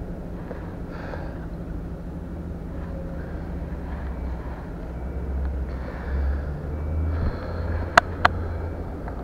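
Fishing tackle being handled at the water's edge: two sharp clicks about a third of a second apart, about eight seconds in, over a steady low outdoor rumble.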